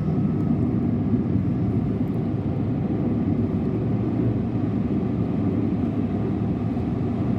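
Steady road and engine noise of a car being driven at speed, heard from inside the cabin.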